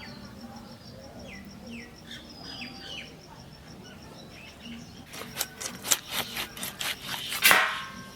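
Birds chirping faintly over a steady, high, rapid pulsing tone. Then a quick run of about ten sharp knocks, the last one loudest and ringing briefly.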